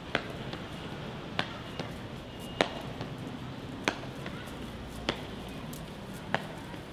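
Sharp taps at a slow, even pace, about one every second and a quarter, over a steady low hum.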